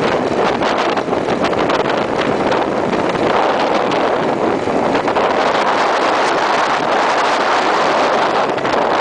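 Steady wind rush over the microphone of a motorcycle moving at road speed, mixed with the noise of the ride.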